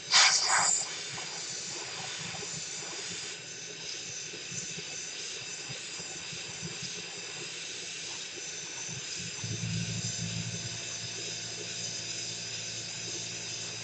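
Steady hiss of blowing air with a thin high whine, from a blower at the repair bench. A short louder burst comes just after the start, and a low hum joins about ten seconds in.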